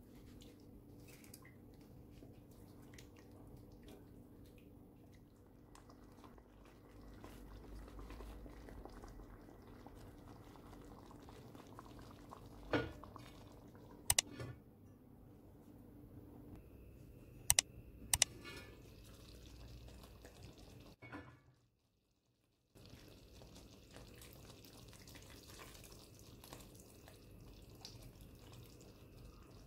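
Chicken simmering in broth in an enamelled cast-iron pan, with a faint steady liquid sound. About halfway through come four sharp clanks of the pan's heavy lid being handled and set on. Near the end, lemon juice trickles into the pan.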